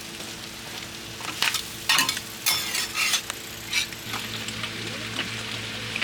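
Organ meat sizzling on a large iron griddle, with a handful of loud metal scrapes and clatters of spatulas stirring it between about one and four seconds in.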